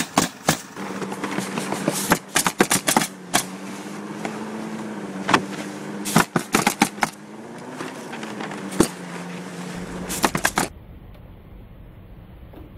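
Pneumatic coil roofing nailer firing nails into asphalt shingles: sharp shots, some single and some in quick runs of several, over a steady motor hum. The shots and hum stop about ten and a half seconds in, leaving only faint background noise.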